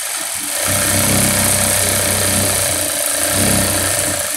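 Single-needle industrial sewing machine running at a steady speed, stitching a row through the padded cap brim. A low motor hum joins about half a second in, and the machine stops at the end.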